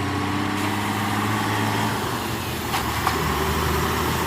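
An engine running steadily with a low, even hum and a hiss above it, with a couple of light knocks about three seconds in.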